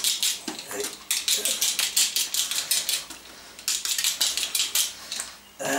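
Potatoes being peeled fast: a blade scraping off the skin in quick strokes, several a second, with short pauses about three seconds in and near the end.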